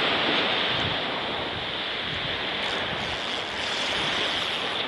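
Small surf washing up a sandy beach, with wind on the microphone: a steady rushing noise.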